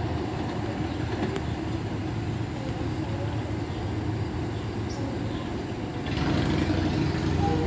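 Metro-North M3 electric multiple-unit train approaching along the track with a steady rumble, growing louder about six seconds in as it draws near.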